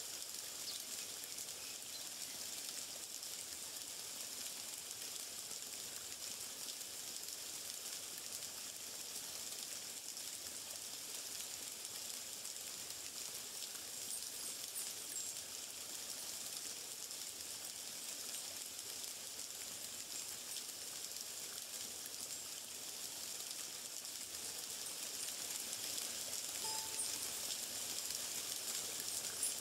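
Steady outdoor nature ambience: an even, high hiss, with faint ticking midway and near the end and one short high note near the end.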